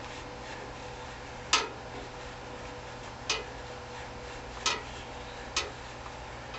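Four sharp, irregularly spaced clicks from work at a welder's rectifier plate, over a steady low hum.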